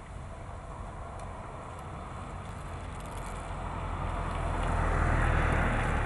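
A vehicle passing over a steady background rumble of traffic, growing louder to a peak about five seconds in, then fading.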